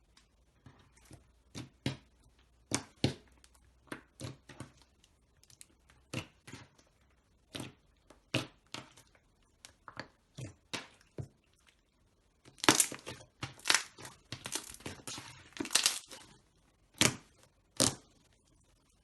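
Slime being squeezed and pressed by hand, giving irregular sharp pops and crackles, scattered at first and then a dense run of louder crackling about two-thirds of the way through.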